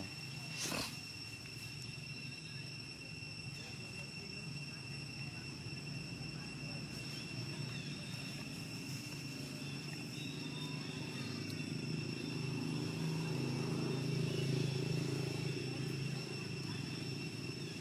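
Insects droning steadily at a high, even pitch, over a low rumble that grows louder about twelve seconds in and eases off near the end. There is a single faint click in the first second.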